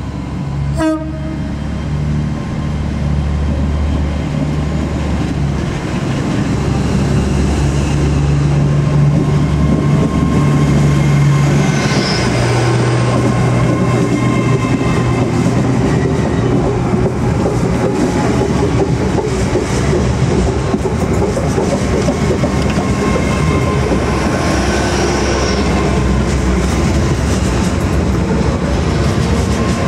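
A diesel train running alongside the platform, wheels clacking over the rail joints over a steady low engine drone; it grows louder about ten seconds in and stays loud. A sharp click about a second in.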